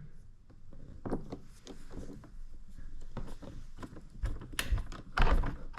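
A new door handle grip being fitted into a BMW F34 door: scattered light clicks and knocks, with a few louder knocks near the end.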